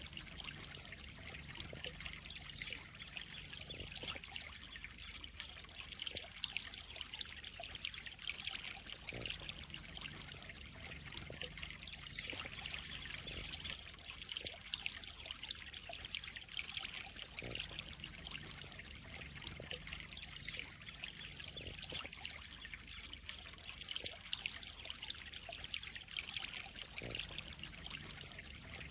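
Water trickling steadily into a koi pond, an even splashing hiss without pauses.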